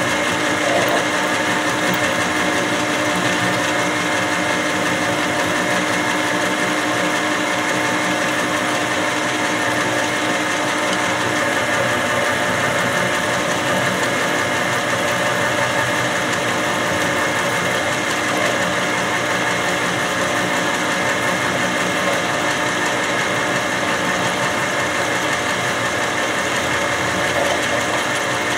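Milling machine slot-cutting extruded aluminium with a 3/4-inch four-flute end mill: the spindle runs and the cutter chews steadily through the metal. It is a constant machine sound with several held tones and no change in level.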